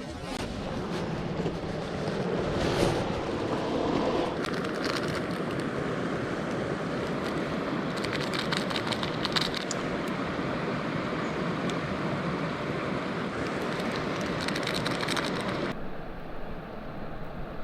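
Cooking over a wood campfire: a steady rushing noise with scattered crackles, in clusters about halfway through and again near the end.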